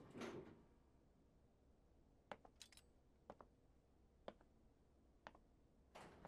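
Near silence, broken by faint sharp clicks that come about once a second from about two seconds in.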